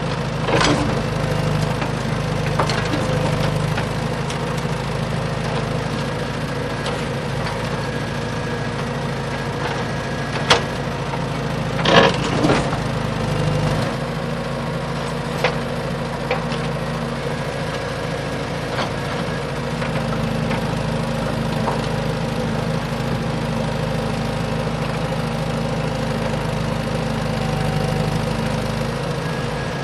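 Small electric motor of a homemade model tractor running steadily with a low hum. A few sharp knocks sound over it about ten to sixteen seconds in.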